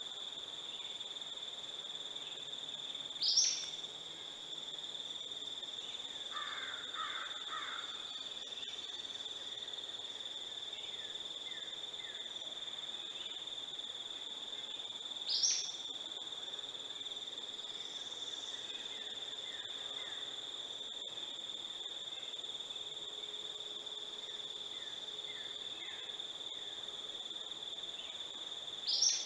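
Steady, high-pitched insect drone, broken three times, about twelve seconds apart, by a short, loud rising call, with a brief run of faint bird notes a few seconds in.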